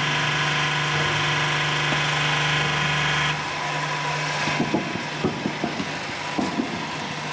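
A motor running steadily; its louder upper noise stops about three seconds in and a lower hum carries on, then irregular knocks and clatter of work on metal follow.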